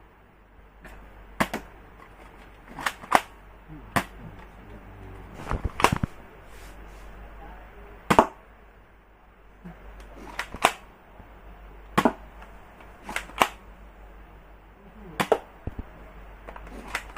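Toy soft-bullet gun being fired over and over: sharp snaps every second or two, about a dozen in all, some in quick pairs.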